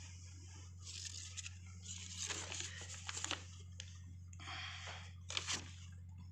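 A folded paper leaflet crinkling and rustling in a hand, in several short irregular bursts, the sharpest near the end, over a steady low hum.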